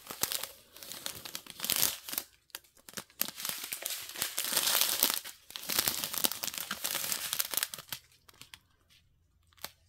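Strip of small plastic bags of diamond painting drills crinkling in irregular bursts as it is handled and turned over, dying down near the end.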